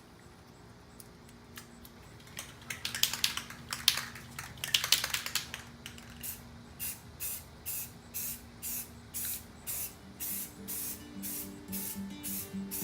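Aerosol spray paint can hissing in several short, uneven bursts. Music follows, with a steady high percussive beat and pitched notes coming in near the end.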